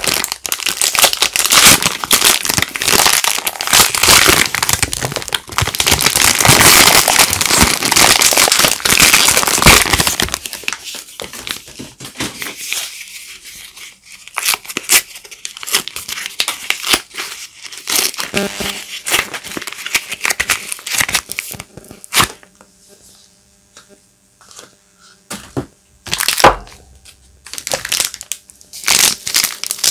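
Soap wrappers crinkling and tearing as bars of soap are unwrapped by hand: dense, steady crinkling for about the first third, then sparser crackles and clicks with a short lull, one sharp click, and crinkling again near the end.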